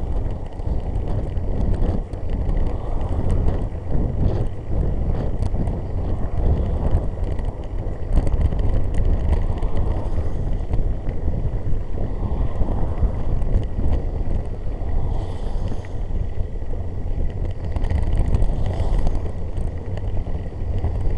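Wind noise on a cycling headcam's microphone while riding, over the hiss of cars' tyres on a wet road as they pass, with two louder swells of hiss in the second half.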